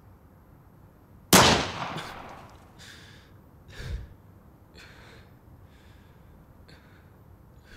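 A single gunshot about a second in, sharp and loud with an echoing tail that dies away over about a second. It is followed by a low thump and a string of short, gasping breaths.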